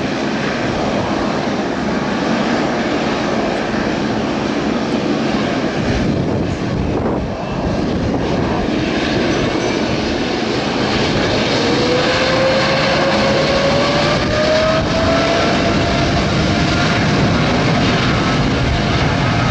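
Boeing 777-200LR's twin GE90 turbofan engines running at high power on the runway: a steady rush of jet noise. About halfway through, a whine rises in pitch as thrust builds for the takeoff roll.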